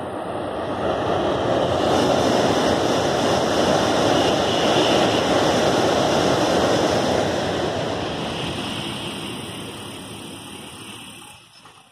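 N700-series Shinkansen bullet train passing at speed over a railway bridge: a loud rushing noise that builds over the first couple of seconds, holds, then fades away over the last few seconds.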